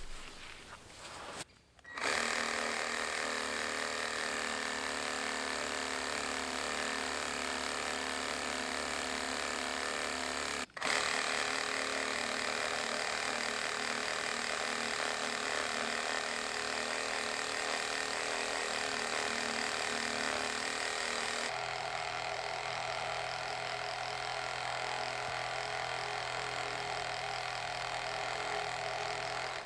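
A small motor whirring steadily. It cuts out briefly about two seconds in and again about eleven seconds in, and its tone changes abruptly a little past the twenty-second mark.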